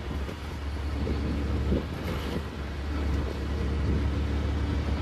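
Steady low rumble of motor vehicles, with a haze of street noise and a few faint knocks.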